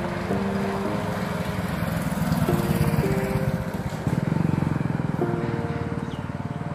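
A motorcycle engine running as it rides past, with a rapid pulsing drone that is strongest about four seconds in. Under it plays background music of slow sustained chords.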